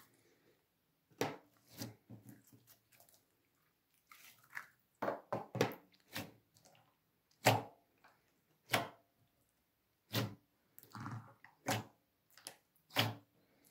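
Clear glitter slime being kneaded and pressed by hand, giving irregular sticky squelches and sharp pops, some in quick clusters.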